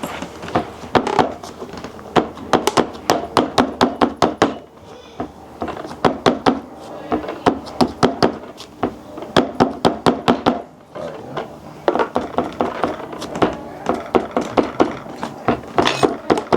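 Slime being kneaded and squeezed in the hands, giving runs of quick sticky clicks and pops, several a second, in bursts with short pauses between.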